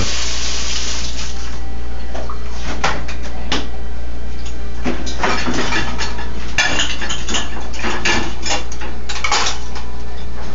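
Plates and dishes clattering and clinking as they are stacked into a dishwasher rack, in short irregular knocks, over a steady low hum.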